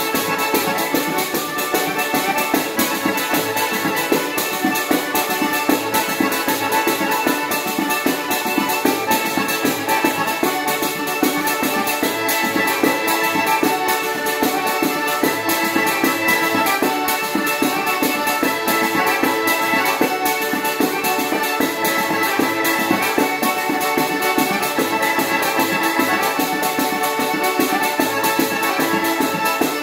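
Calabrian tarantella played live on a diatonic button accordion (organetto), with two large jingled frame drums (tamburelli) beating a steady, dense rhythm under the melody.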